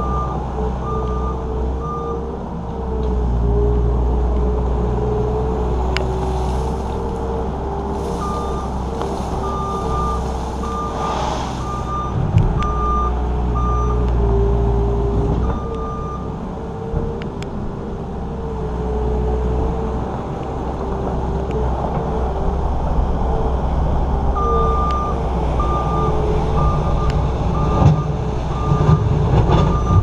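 New Holland L230 skid steer's diesel engine running steadily, with its reverse alarm beeping in several runs as the machine backs up. A few sharp knocks come through along the way.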